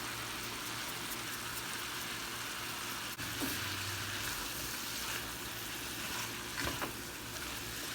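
Stew base sizzling steadily in a frying pan, with a couple of faint knocks about two-thirds of the way through.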